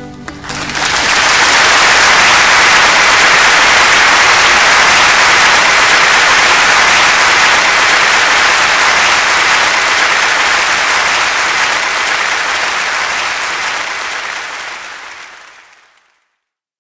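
Audience applause at the end of a live song, a steady clapping that fades out and cuts to silence near the end.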